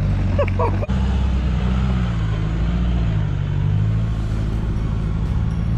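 Toyota Prado four-wheel drive's engine running steadily under load as the vehicle crawls over a rutted dirt track, its pitch rising and falling slightly. The sound drops out sharply for an instant about a second in.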